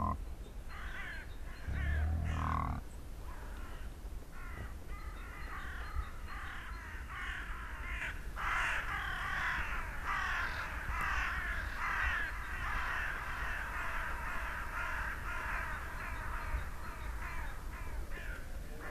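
A flock of crows cawing, many short calls overlapping into a dense chorus that builds from about four seconds in. Two deep, low animal calls sound near the start.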